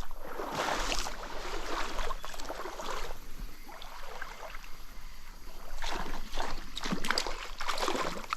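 Stream water splashing and sloshing close by, uneven and busier in the last couple of seconds.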